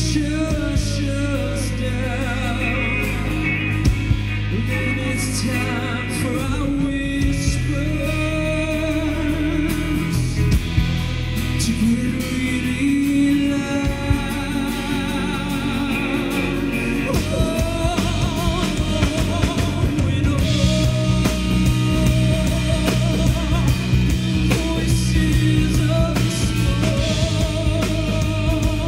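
Rock song with singing over guitar, bass and drums.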